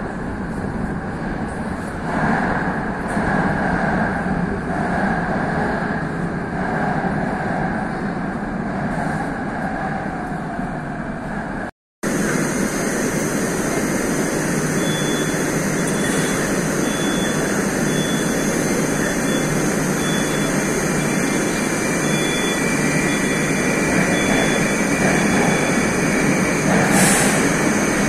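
Moscow Metro train of 81-717/714-type cars rumbling into the platform. After a short break in the sound, the train stands with its doors open over steady station noise, with a short hiss near the end.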